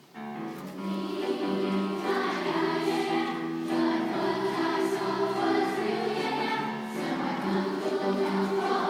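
Middle school choir singing a Christmas song, holding long sustained notes; the sound cuts in abruptly at the start.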